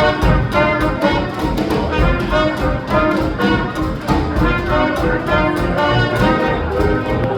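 Live hot jazz band playing an uptempo swing tune with horns over a steady rhythm-section beat.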